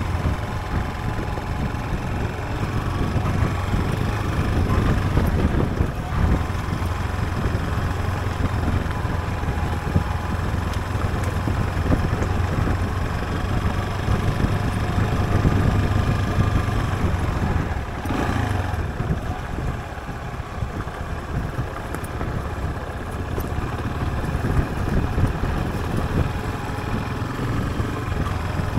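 Yamaha Serow trail bike's single-cylinder four-stroke engine running steadily as the motorcycle rides along, with wind noise on the microphone. The sound drops for a couple of seconds about eighteen seconds in, then picks up again.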